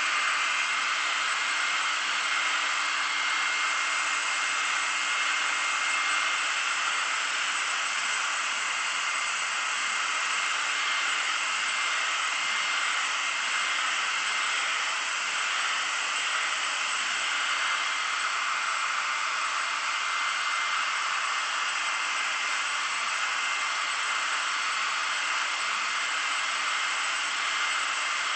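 Handheld hair dryer running steadily, a constant rush of air with a thin whine, blowing hot air onto a metal motorcycle fuel tank to heat a dent.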